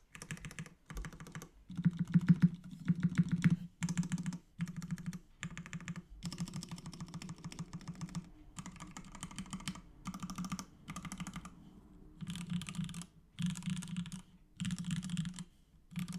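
Fast typing on a Duck Mini v1 mechanical keyboard with lubed 65 g vintage Nixdorf black linear switches on an aluminium plate. The keystrokes come in quick runs broken by short pauses, and are loudest about two to four seconds in.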